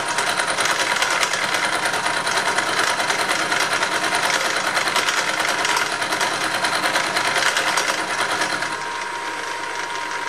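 Milling machine cutter taking a 2 mm deep cut in metal, a dense, rapid cutting chatter with hot chips being thrown off. About nine seconds in the cutting noise eases, leaving the spindle running with a steady whine.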